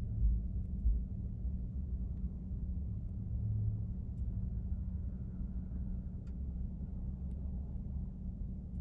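Low, steady rumble of distant city traffic, with a faint steady hum underneath.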